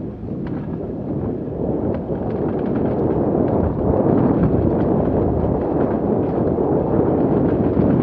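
Mountain bike riding fast along a dirt forest trail: wind buffeting the action camera's microphone over the rumble of the tyres on the ground, with small clicks and rattles from the bike. It gets louder from about four seconds in.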